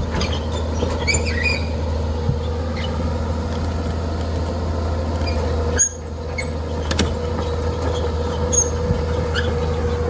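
A heavy machine's engine running steadily, with short high squeaks and squeals coming and going over it. The sound drops off sharply for a moment about six seconds in.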